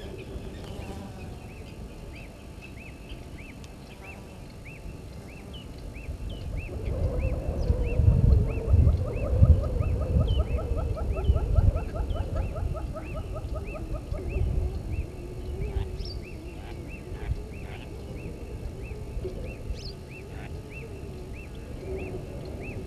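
Animal calls: a short upward chirp repeated about twice a second throughout, joined about seven seconds in by a rapid rattling call that lasts some six seconds over a low rumble.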